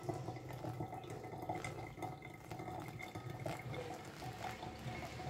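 A thin stream of water poured onto wet coffee grounds in a pour-over dripper: a steady soft trickle with faint dripping.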